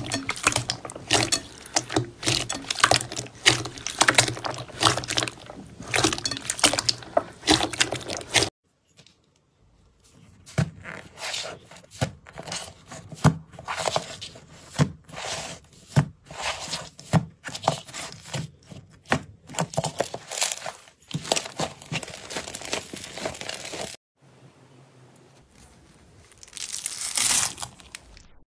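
Hands kneading and squeezing silver glitter slime, with a dense run of crackling clicks and pops from trapped air. After a short break, soft slime is pressed and poked, giving separate sharp clicks and soft thuds, and near the end a crunchy burst as a hand pushes into slime packed with foam beads.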